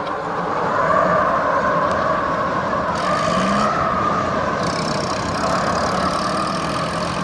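Gusting wind sound effect: a steady rushing noise with a wavering whistle that swells about a second in and holds, over a low steady hum.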